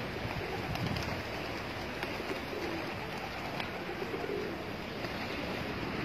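Feral pigeons cooing low and softly over a steady background rush.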